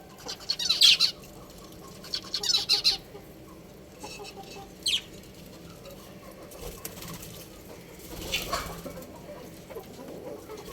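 Budgerigars chirping in short bursts, about four times: twice in the first three seconds, briefly near five seconds and again near eight and a half.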